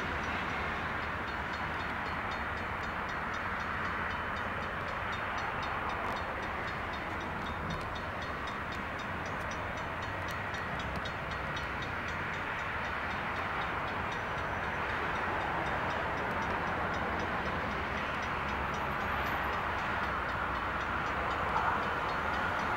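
Calgary C-Train light rail vehicle, a Siemens-Duewag U2, running on the adjacent track as it approaches and passes close by: a steady running noise that grows a little louder near the end as it draws level.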